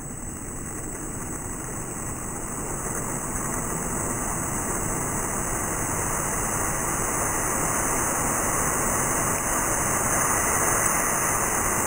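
Water rushing from a handheld IWA X firefighting nozzle: a steady hiss that grows gradually louder as the nozzle is turned from a straight stream to a wide fog spray.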